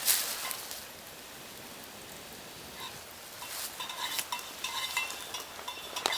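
Campfire crackling and hissing, with a burst of small crackles and clicks in the second half.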